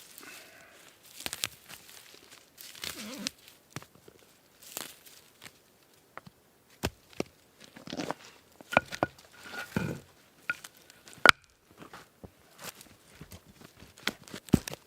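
Irregular rustling, crinkling and light knocks of things being handled, with a sharp click about eleven seconds in, the loudest sound.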